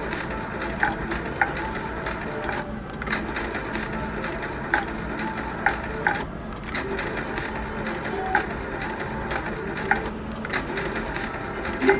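Slot machine's reels spinning: a dense run of clicking and ratcheting with short scattered beeps.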